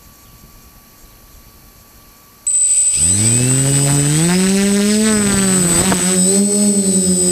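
Quadcopter's brushless motors and propellers starting up suddenly about two and a half seconds in, with a high steady whine. The hum then rises in pitch as the motors spin up for takeoff and settles into a steady, slightly wavering drone.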